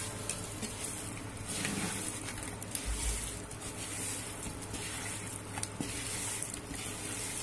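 Raw tuna pieces being mixed by hand in a metal bowl to coat them with chilli powder, turmeric and salt for marinating: wet squelching and rustling that swells and fades in repeated strokes, with a few light clicks of the pieces against the bowl.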